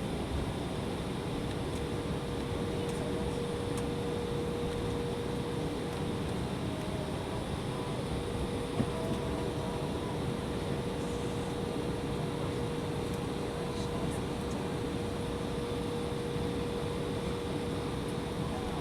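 Steady cabin noise of an Embraer E175 in flight, heard from inside the cabin: its two GE CF34-8E turbofans and the airflow make an even rush with a steady hum through it. A single short click about halfway through.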